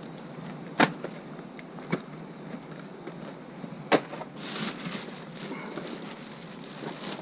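Rustling of packages and boxes being handled, with four sharp knocks: about a second in, near two seconds, about four seconds in, and at the very end.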